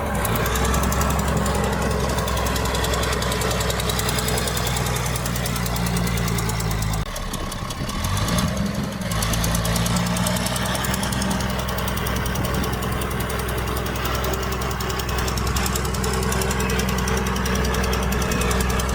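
Heavy diesel earthmoving machinery running steadily with a deep engine hum. About seven seconds in the low hum drops away for about two seconds, then comes back.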